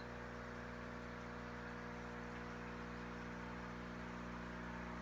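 Steady low mechanical hum, even in pitch throughout, with a few faint high ticks.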